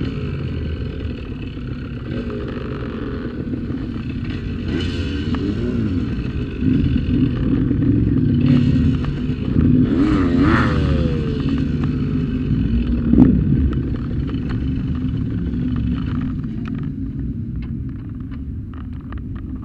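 Motorcycle engines running steadily, with engines revving up and down several times, and one sharp bang about two-thirds of the way through.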